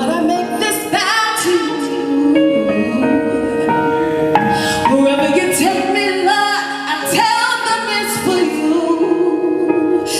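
Music with a solo singing voice holding long notes that slide and bend over steady sustained chords.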